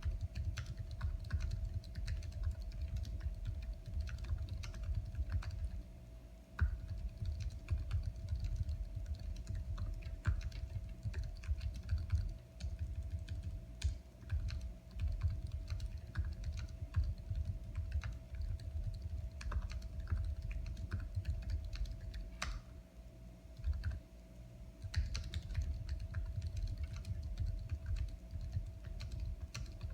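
Typing on a computer keyboard: a fast, irregular run of keystroke clicks with a few short pauses, over a faint steady hum.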